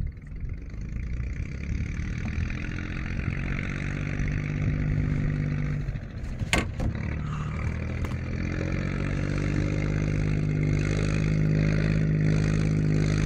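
A boat engine running steadily. It drops away briefly about six seconds in, then picks up again and rises a little in pitch. A single sharp knock comes about six and a half seconds in.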